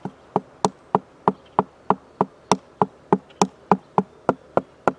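A hand tapping on the ice frozen over a bird bath: a steady run of sharp knocks, about three a second, showing that the water is frozen solid.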